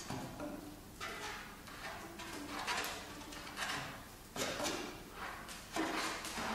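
Saxophone quartet playing breathy, unpitched air sounds through their instruments in repeated surges, with a few faint low held notes underneath: contemporary extended technique.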